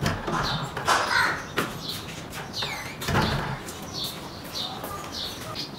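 Birds calling: a few harsh calls among many short, high chirps, with one sweeping call about two and a half seconds in.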